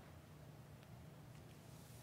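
Near silence: room tone, a steady low hum with a few faint ticks.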